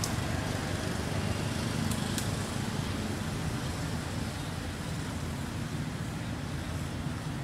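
Steady low background rumble, with two faint clicks about two seconds in.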